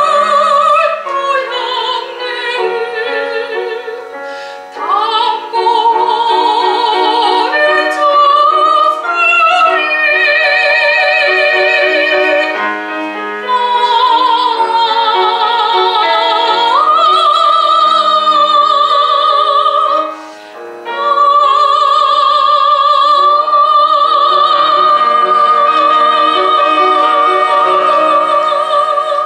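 Soprano singing a Korean art song in classical style with vibrato, accompanied by piano. After a short break, she holds one long note for about eight seconds to close the phrase.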